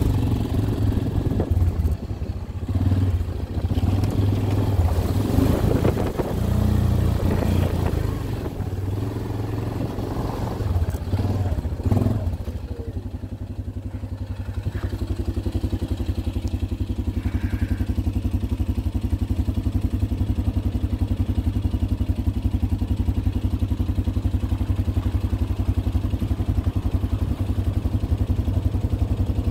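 ATV engine idling steadily, with clattering and handling noise over it for the first twelve seconds or so.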